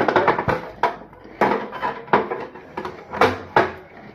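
Knife chopping vegetables on a wooden cutting board: about eight separate knocks at an uneven pace.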